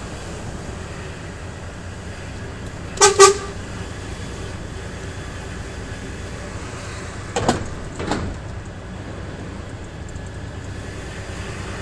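DAF XF 105 truck's six-cylinder diesel engine running steadily at low speed, with two short horn toots in quick succession about three seconds in. Two fainter short sounds follow a few seconds later.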